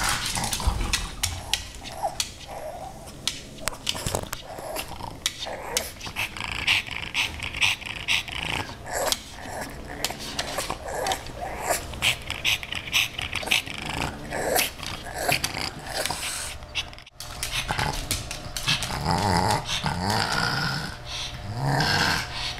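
A pug making a string of play noises to get a kitten to play: short high-pitched cries in the middle and lower rumbling growly noises near the end, broken by many short sharp clicks.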